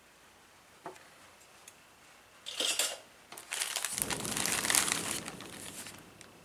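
Plastic bag crinkling as model kit parts are handled: a short crinkle about two and a half seconds in, then a longer, louder stretch of crinkling.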